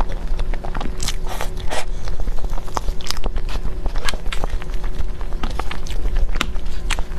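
Close-miked eating of layered crêpe cake: bites, wet chewing and mouth smacks as many short clicks at an irregular pace. A steady low hum runs underneath.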